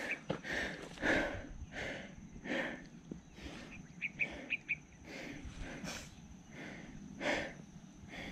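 A hiker's heavy breathing while climbing, one loud breath about every second, with a few faint short ticks near the middle.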